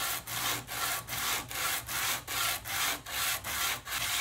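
Wooden handle hand-sanded flat on a strip of sandpaper stuck to a flat tabletop: steady back-and-forth scratchy strokes, about three a second, squaring the edge to 90 degrees.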